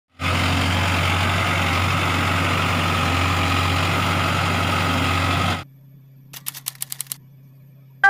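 New Holland B80B backhoe loader's diesel engine running steadily with a deep hum as the machine drives, cutting off abruptly after about five and a half seconds. Near the end, a quick run of typing clicks.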